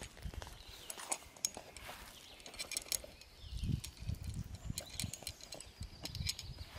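Dehydrated shredded hash browns pouring out of a paper carton into a pan of water, heard as many scattered light ticks and rustles from the dry shreds, with a few low dull bumps from the carton and pan being handled about halfway through.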